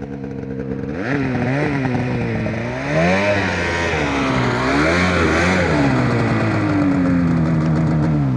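Mountain snowmobile with a long 165-inch track climbing hard, its engine getting louder about a second in and revving up and down several times as the throttle is worked, then holding a steadier, slowly falling pitch near the end.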